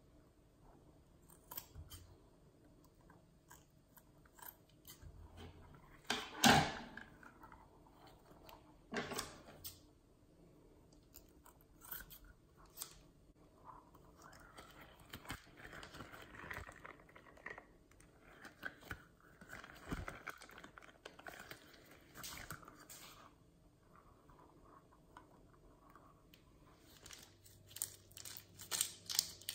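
Scissors snipping through a soft spiky rubber squishy toy, a few sharp snips with the loudest about six seconds in, then hands squeezing and pulling the rubbery toy apart with soft squishing and tearing. Near the end, a plastic piping bag crinkles as it is handled.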